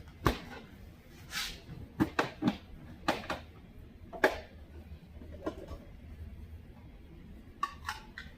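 Hard plastic parts of a cordless vacuum cleaner handled by hand: an irregular string of clicks and knocks with a brief scrape, ending in a quick group of clicks. The vacuum motor is not running.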